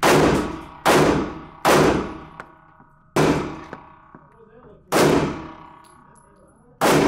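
Six pistol shots in an uneven string, the first three under a second apart and the rest about one and a half to two seconds apart, each a sharp crack with a short echoing ring-out in the enclosed indoor range.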